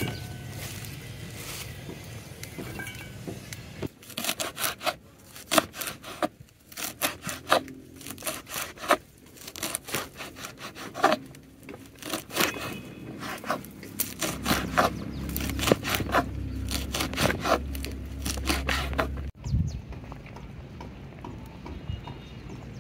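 Repeated irregular scraping and rubbing strokes, a few a second, of soaked dry okro being mixed in a bowl or pot. They start about four seconds in and stop at a sudden cut near the end.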